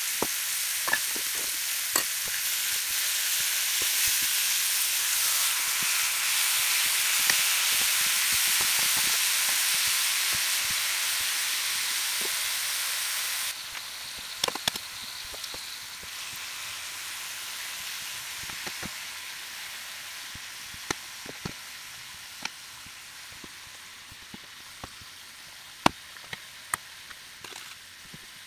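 Bacon-wrapped venison steaks frying in a skillet: a loud, steady sizzle with scattered pops of spitting fat. About halfway through it drops suddenly to a quieter sizzle with occasional sharp crackles that slowly fades.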